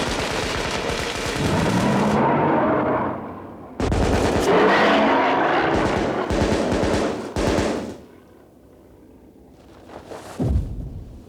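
Rapid volleys of rifle fire in two long, dense bursts with a short break between them. The firing stops about eight seconds in, followed by a few heavy low thuds near the end.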